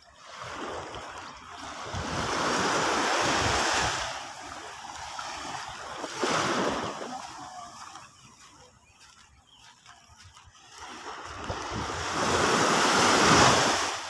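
Small waves breaking and washing up a sandy shore, the surf swelling and fading: a long wash in the first few seconds, a shorter one about six seconds in, and another building to the loudest point near the end.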